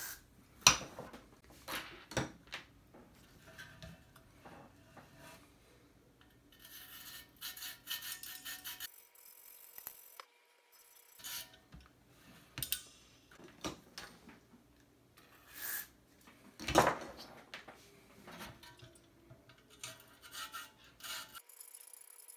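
A small wire brush scratching and scrubbing inside the reverb tank's input and output jacks, in short stretches. Between them come clicks and two sharp knocks of the metal tank pan being handled.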